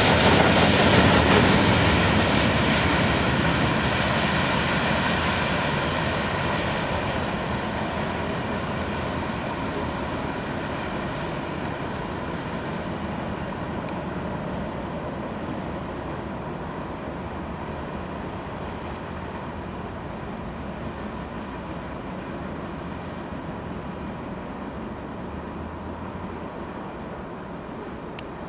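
Freight train's covered hopper cars rolling along the rails, a steady rumble that fades smoothly as the end of the train moves away.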